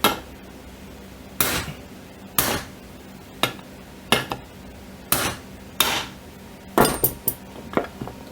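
Hammer striking a deep-well socket to drive the main bearing out of a heated chainsaw crankcase half: about ten sharp metallic blows, roughly one a second, two close together near the end.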